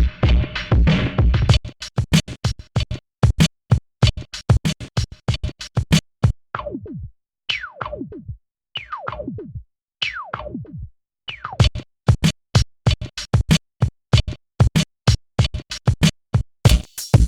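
Drum loop processed through the Stambecco plugin: after about a second and a half the beat breaks into chopped, stuttering fragments with gaps. Several hits sweep sharply down in pitch like a record slowing, and dense rapid hits return near the end.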